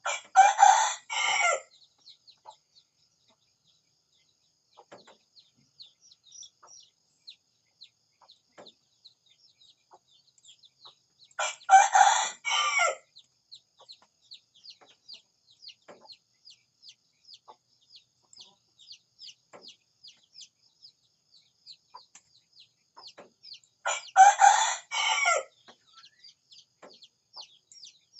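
A rooster crowing, three times about twelve seconds apart, each crow about one and a half seconds long. Quick high-pitched chirping goes on steadily between the crows.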